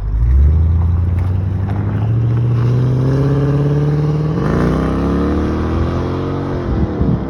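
Mercedes ML55 AMG's 5.4-litre V8 running under throttle, its pitch climbing steadily over several seconds, then dropping away sharply near the end.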